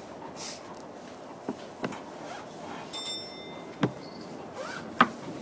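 Inside a commuter train carriage: a steady low background rumble with scattered sharp clicks and knocks, the loudest about five seconds in, and a short high tone about three seconds in.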